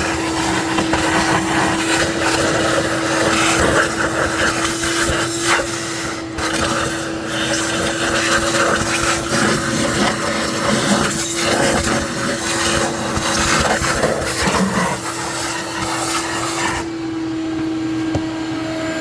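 Electric power tool running at a steady pitch, with rough grinding and scraping against a hard surface while parts are cleaned up for new intake manifold gaskets. The grinding eases near the end while the motor keeps running.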